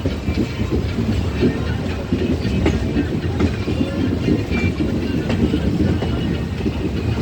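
Steady, loud low rumble with frequent light rattles and clicks throughout.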